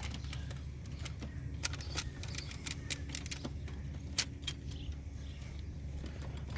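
Scattered sharp clicks and light rattles of hands working a rubber PCV hose through the engine bay, with no speech, over a steady low hum.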